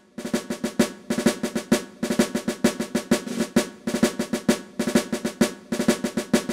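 Intro music of fast, rhythmic drumming, a snare-style cadence of rapid hits in phrases about two seconds long.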